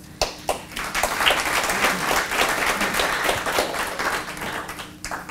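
Audience applauding: a few scattered claps at first, quickly building to dense applause that dies away near the end.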